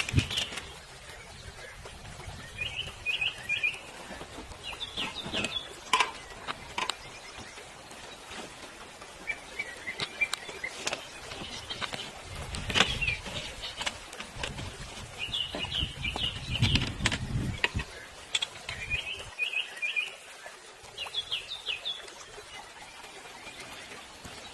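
Small songbird calling in short series of quick high chirps, repeated every few seconds. Occasional sharp clicks and a few low thuds are mixed in.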